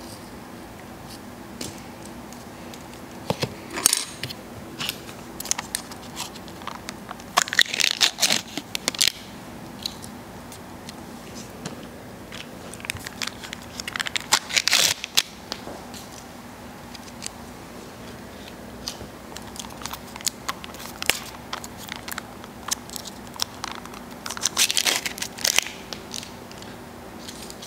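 Foil lids being peeled off small plastic dipping-sauce cups, a crackly crinkling and tearing in short bursts, the biggest around four, eight, fifteen and twenty-five seconds in.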